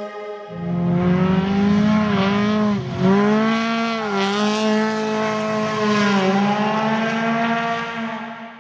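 Car engine revving hard in a drift, its pitch dipping and recovering a couple of times as the revs rise and fall. The sound fades out near the end.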